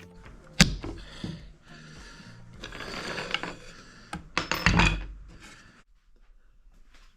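Handling noise in a wood shop: a sharp knock, scraping and rustling, then a louder cluster of knocks and clatter, followed by quiet.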